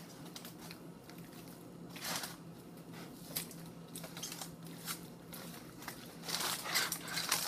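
Aluminium foil crinkling and crackling while a fork and gloved hand shred a smoked pork shoulder resting in it: short scattered crackles, busier near the end.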